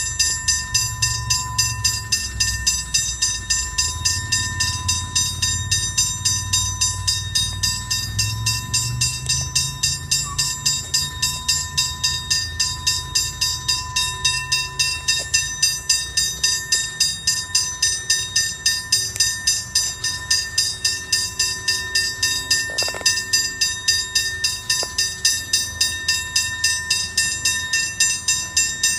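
Alstom Comeng electric suburban train at the platform, a low rumble under a steady high-pitched ringing that pulses evenly about three times a second.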